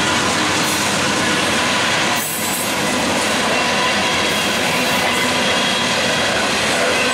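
Freight train cars, covered hoppers and tank cars, rolling past close by: a steady rumble and rattle of steel wheels on rail, with thin squealing tones running through it. There is a brief dip in the noise a little over two seconds in.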